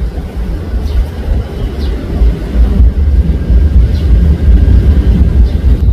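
Deep, booming bass of amplified live band music (bass guitar and kick drum) carrying over from a church next door, heard as a heavy, unsteady low rumble with little of the higher instruments coming through.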